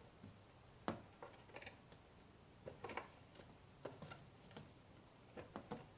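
Faint, scattered clicks and taps of plastic parts in a car side-mirror housing as the turn-signal unit is worked loose by hand.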